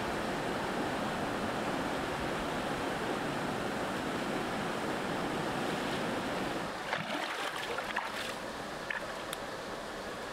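Steady rush of a flowing river over rocks. About two-thirds of the way through it drops quieter, and a few light knocks and clicks follow, as bare feet step across wet boulders.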